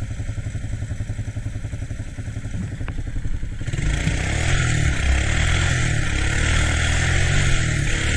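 ATC three-wheeler engine running at low revs, then opened up about a third of the way in, running louder and harder.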